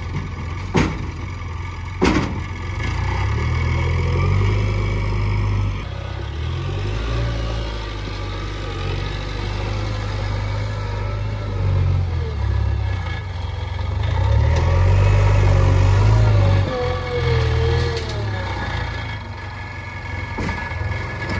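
Diesel engine of a JCB backhoe loader at work, rising and falling as it takes load, with a few sharp clanks near the start and near the end.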